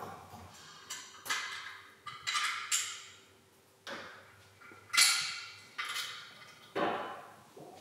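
A string of about seven sharp knocks and clinks at irregular intervals, each dying away within about a second; the loudest comes about five seconds in.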